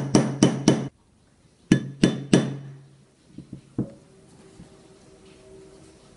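Small hammer tapping a pin into an Ithaca 4E's steel receiver. A quick run of even, ringing taps, about four a second, stops about a second in; three more taps follow a moment later, then a few light knocks.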